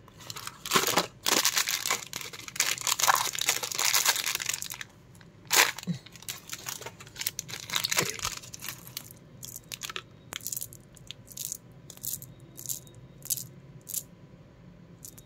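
A Cadbury Gems pack being torn open by hand: cardboard and plastic-film packaging crinkling and tearing, densest in the first few seconds. After that come scattered crinkles and a string of short clicks.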